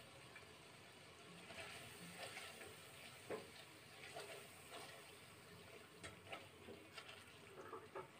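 Faint bubbling of thick korma sauce in an aluminium pot, with soft scrapes and taps of a silicone spatula turning boiled eggs in it.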